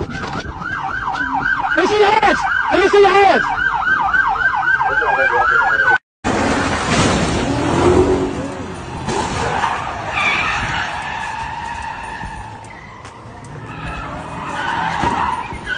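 Police car siren in a fast yelp for about six seconds, cut off abruptly. Then tyres squealing as a car slides through an intersection.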